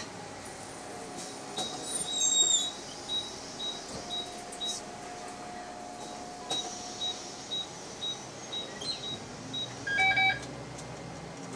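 A city bus's electronic beepers going while passengers board at the front door: short high pips about twice a second, with two louder beeps from the fare card reader, one about two seconds in and one near the end.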